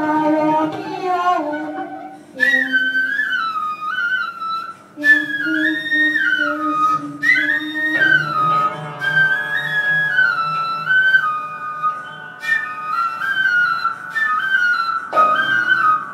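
A small flute playing a stepping melody in short phrases over lower sustained accompaniment, in live ensemble music.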